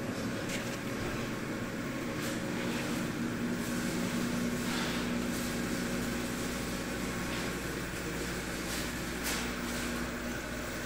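Saltwater reef aquarium equipment running: pumps humming steadily over a hiss of moving water, with a few faint splashes or clicks.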